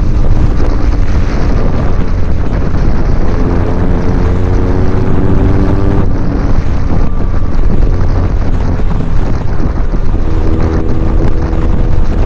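BMW F800ST parallel-twin engine running at road speed, mostly buried under heavy wind buffeting on a recorder mounted on the seat. A steady engine hum rises above the wind a few seconds in and again near the end.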